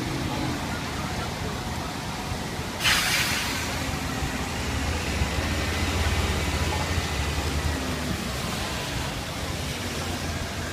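Wet city street traffic as a New Flyer XD40 Xcelsior transit bus pulls away and drives off, its engine a low rumble that swells a few seconds in. A sudden sharp hiss, the loudest sound, cuts in about three seconds in and dies away within a second.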